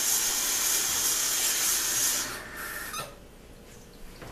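Water running in a steady hiss, which stops about two to three seconds in.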